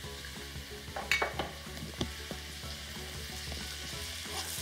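Pieces of sheep leg and onions sizzling as they sauté in oil in a frying pan, with a few sharp clicks about a second in.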